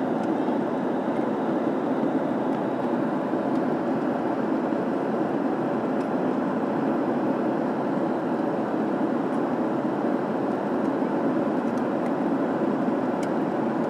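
Steady cabin noise inside a Boeing 737 airliner in flight: an even rush of airflow and engine noise with no change in level.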